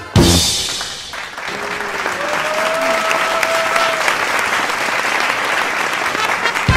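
Paso doble music ends on a final accented hit, then an audience applauding steadily, with a drawn-out cheer rising above the clapping about two seconds in.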